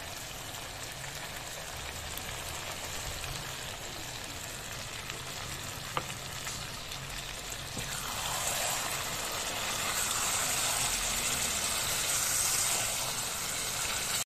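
Chicken karahi sizzling in a non-stick frying pan, a steady frying hiss that grows louder about eight seconds in. A single click about six seconds in.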